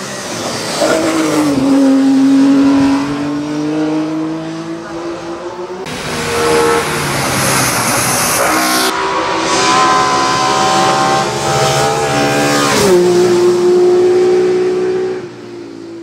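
Ford Escort Mk2 RS 2000 hillclimb race car driven flat out, its engine revving hard and the note rising and dropping between gears and corners, with some tyre squeal. It is heard in several short takes that change abruptly.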